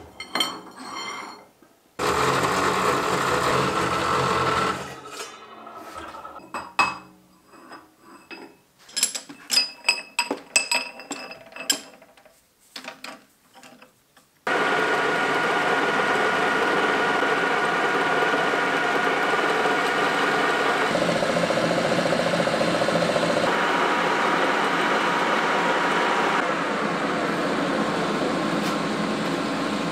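A metal-cutting chop saw runs for a few seconds, then sharp metallic clinks and knocks come as steel work is handled and fitted into a lathe chuck. About halfway through, an old metal lathe starts and runs steadily, its sound shifting briefly a little later, as a cut is taken.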